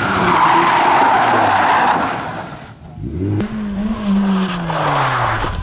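BMW E36 3 Series rally car sliding through a corner, its tyres squealing over the engine. About three seconds in, another rally car passes with its engine note rising briefly and then falling away.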